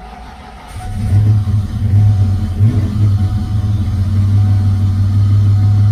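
Ford Fox-body Mustang engine cranking briefly, then catching under a second in and running, uneven for a couple of seconds before settling to a steady idle. It is the first start on a newly installed MegaSquirt 2 standalone ECU running an untuned base map.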